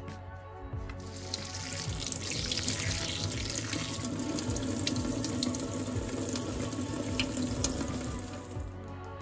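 Kitchen tap running into a stainless steel sink, the stream splashing over a cupped hand. It starts about a second in and stops near the end, over background music.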